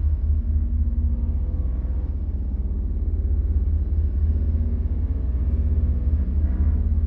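Horror ambience drone: a deep, steady low rumble with faint sustained tones above it.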